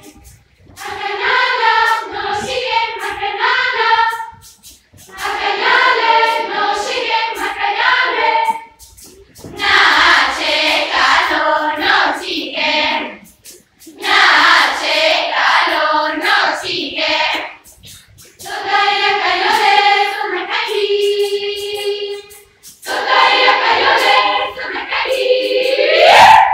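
Large children's choir singing in phrases a few seconds long, separated by brief pauses, with a loud rising glide near the end.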